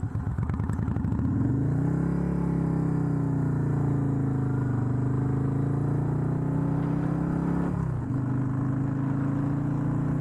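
Motorcycle engine pulling away from low revs, rising in pitch and then running steadily under load, with a brief drop in revs about eight seconds in like a gear change.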